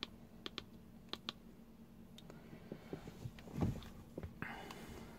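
Buttons on a handheld AutoLink OBD-II code reader clicking as they are pressed, a handful of quiet clicks at uneven intervals, with a soft handling thump about three and a half seconds in.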